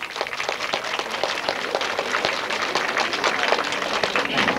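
Audience applauding: many hands clapping at once, building up at the start and holding steady.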